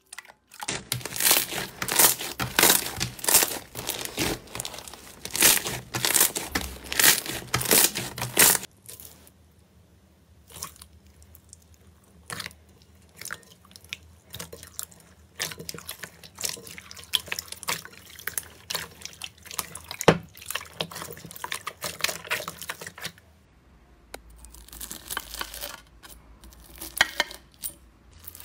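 Hands squeezing and pulling clear slime: loud, dense wet squelching and sticky crackling for the first several seconds, then sparser, quieter clicks and pops. Near the end comes a stretch of crisper crinkling.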